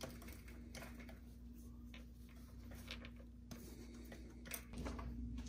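Faint, scattered clicks and light scrapes of a Polaris RZR engine's metal stator cover being worked loose by hand, the flywheel magnets holding it on, over a steady low hum.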